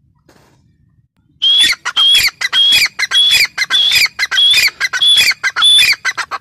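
Grey francolin calling: a loud series of harsh, ringing notes repeated about twice a second, starting about a second and a half in and stopping just before the end.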